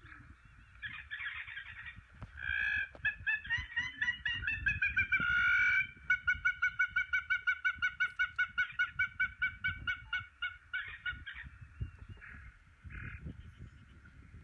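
A water bird calling with goose-like honks: a run of calls starting about a second in, then a rapid string of about four to five honks a second that trails off, with a couple of weaker calls near the end.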